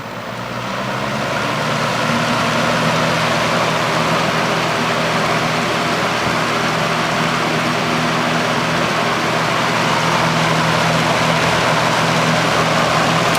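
1981 Kmart K223 box fan (made by Lakewood) with a plastic blade, running on high speed: a steady rush of air over a low motor hum. It builds up over the first couple of seconds as the fan comes up from low speed, then holds steady.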